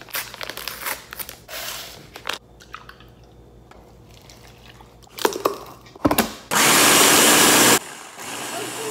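Instant oats rustling out of a paper packet into a plastic blender jar, a few knocks as the lid goes on, then a blender motor running loud and steady for just over a second, on a jar of oats and milk, before it cuts off.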